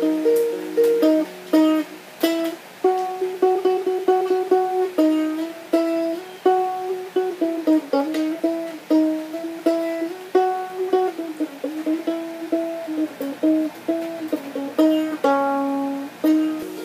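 Gretsch New Yorker mandolin playing a picked melody, with some notes repeated rapidly under the pick.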